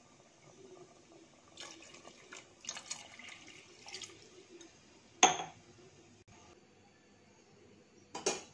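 Water poured from a glass into a pot of chicken curry, running into the liquid for about four seconds. A sharp knock follows about five seconds in, and another comes near the end.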